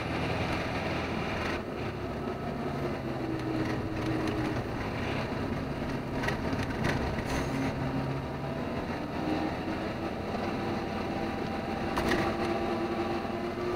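Truck engine running under way with road noise, heard from inside the cab; its note shifts a little in pitch with speed. A few short knocks and rattles come through, the loudest about twelve seconds in.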